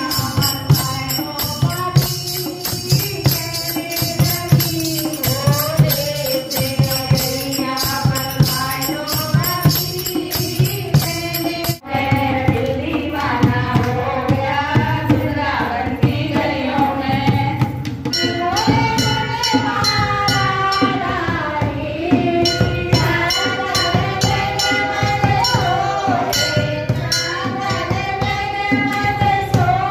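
Women singing a Hindu devotional kirtan bhajan, a lead voice on a microphone with others joining, over rhythmic hand clapping and jingling percussion. The song breaks off abruptly about twelve seconds in and picks up again with another passage.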